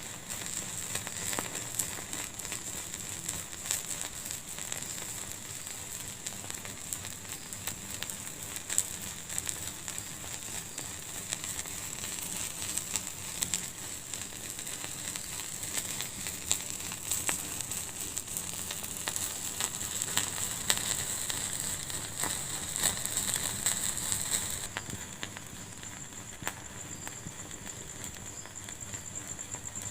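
Fireplace fire crackling, with many small sharp pops over a steady hiss. Near the end the hiss and the overall level drop suddenly.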